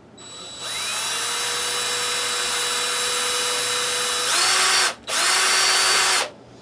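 Electric drill drilling a hole in a small piece of plastic. The motor spins up and runs steadily, then speeds up and gets louder about four seconds in. It stops for a moment, runs again for about a second, and cuts off.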